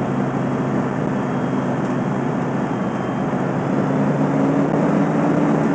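Fire engine's engine running steadily, a loud drone with a few steady low hum tones that drop away near the end.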